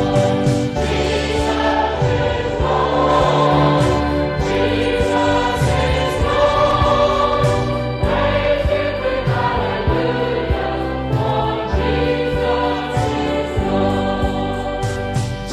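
Choir singing a hymn, held chords changing every second or two.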